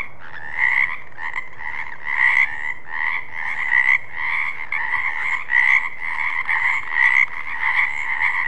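Frogs croaking steadily, with louder croaks swelling out about twice a second.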